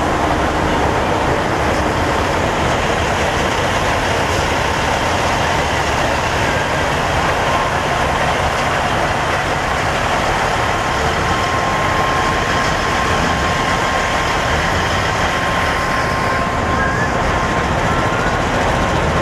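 Steady rumble of idling diesel semi-truck engines, unbroken throughout, with a faint steady whine joining about halfway through.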